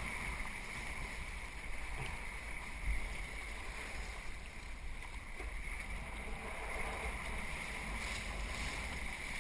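Water washing steadily along a kayak's hull as it moves, with wind rumbling on the GoPro's microphone and a couple of light knocks about two and three seconds in.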